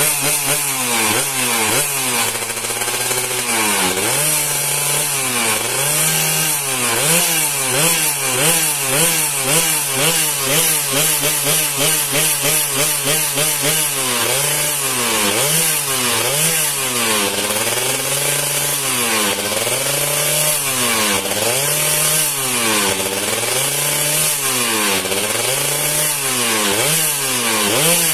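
Yamaha F1ZR's two-stroke single-cylinder engine being revved over and over, its pitch rising and falling about once a second with a raspy, buzzing top.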